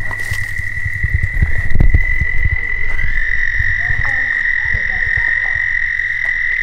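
A cicada's loud, steady buzzing drone held at one high pitch, with low irregular rumbling thumps on the microphone in the first few seconds.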